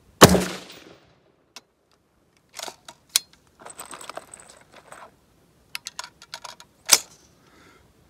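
Taurus T4 rifle fired once about a quarter second in, a loud crack that rings out for most of a second across the open range. Small clicks and rustling of handling follow, then a second sharp crack about seven seconds in.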